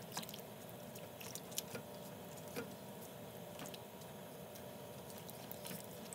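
Silicone spatula stirring raw rice, crushed tomatoes and liquid in a nonstick pan: faint wet squishing with scattered light clicks and scrapes.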